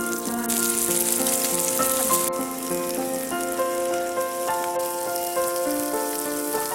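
Background music, a slow melody of held notes, over a steady high hiss that jumps louder about half a second in and drops back abruptly a couple of seconds later.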